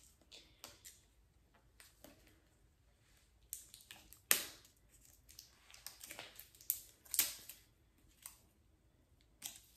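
Fingers picking and peeling at the plastic tear strip on a small squeeze bottle's cap: scattered faint crinkles and clicks at irregular intervals, the sharpest about four seconds in.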